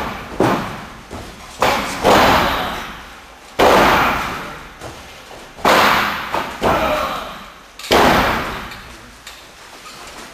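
Wrestlers' bodies slamming onto a raised ring floor, a heavy impact every second or two, each echoing for a second or more around the hall.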